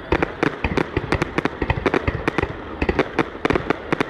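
Fireworks going off: a rapid, irregular run of sharp bangs and pops, several a second.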